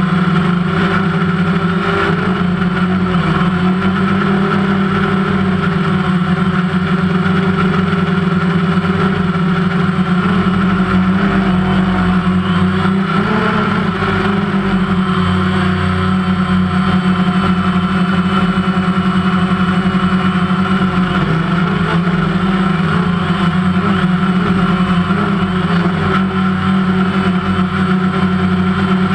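DMZ AIMQ II drone's electric motors and propellers running steadily in flight: a loud, even hum with small shifts in pitch as it manoeuvres, picked up close by the camera mounted on the drone.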